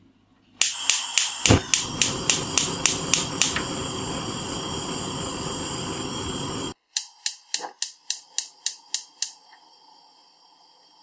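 A run of sharp clicks, about four a second, over a loud steady hiss that cuts off suddenly about six and a half seconds in; then a second, fainter run of about ten clicks over a low hum.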